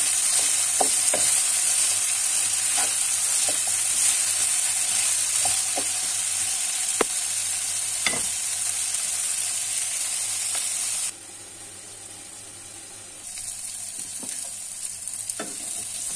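Broccoli, cauliflower, carrots and potatoes sizzling in oil in a frying pan, with a wooden spoon scraping and knocking against the pan now and then as they are stirred. About eleven seconds in the sizzle drops suddenly to much quieter, then comes back a couple of seconds later at a lower level.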